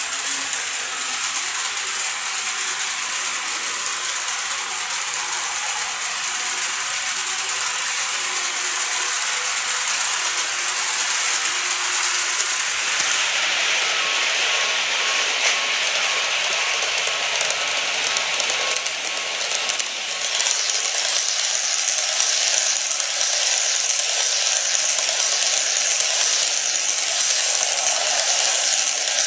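Seibu 30000 series model train running on its track: a steady rattling clatter of small wheels over the rail joints with motor whirr, getting louder in the last third as the train comes close.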